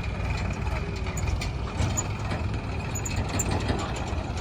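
Diesel engine of heavy earthmoving machinery running steadily, with a low rumble and scattered light metallic clicks and rattles.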